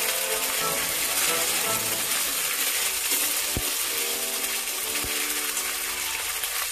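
Hot oil sizzling in an aluminium kadai as a metal spatula stirs spices, tomato and ginger-garlic paste, with the spatula scraping and clinking against the pan; two sharp clinks stand out in the middle.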